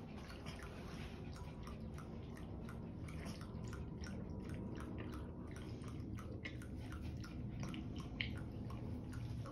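Small dog lapping water from a bowl: a quick, steady run of wet laps, the sign of a very thirsty dog drinking.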